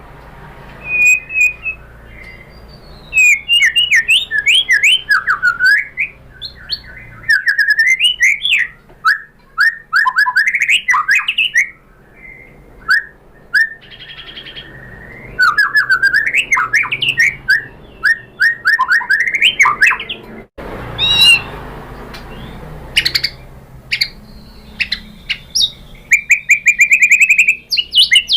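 White-rumped shama (murai batu) singing: phrases of quick, sharp whistled notes and sweeping runs, broken by short pauses.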